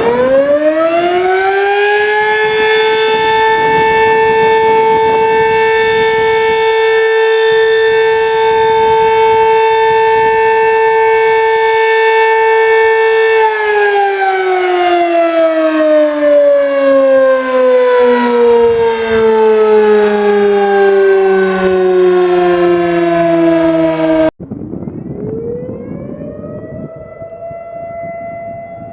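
Civil defense siren used as an emergency alert: it winds up over about two seconds, holds a steady tone, then slowly winds down in pitch until it cuts off abruptly about 24 seconds in. A second, quieter siren then starts winding up and settles on a higher steady tone near the end.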